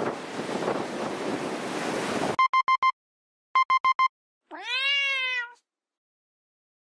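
Outdoor wind and wave noise cuts off about two seconds in. Digital alarm-clock beeping follows: two quick runs of four beeps each. Then a single cat meow, rising then falling, clean against silence, an added sound effect.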